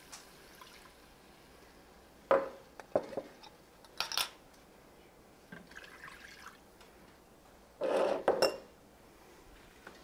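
Beef broth being poured from a measuring cup into an Instant Pot's inner pot, with clinks of the cup against the pot. It comes as a few short splashes and knocks, then a longer pour near the end.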